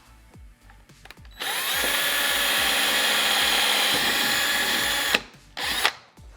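Power drill running steadily for about four seconds while drilling a hole, then a brief second burst of the drill.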